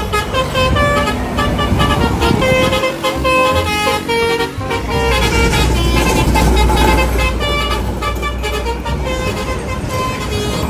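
A bus's multi-tone telolet horn playing a quick tune of short changing notes, over the low rumble of the bus's engine.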